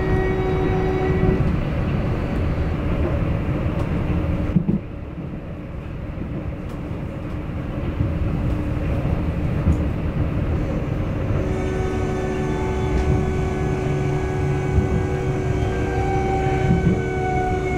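Hamburg U-Bahn DT4 metro car running, heard from inside the car: a steady rumble of wheels on the rails with the electric drive's whining tones. About four and a half seconds in, a click is heard and the whine cuts out, leaving quieter rolling noise. About eleven seconds in, the whine returns, slowly falling in pitch.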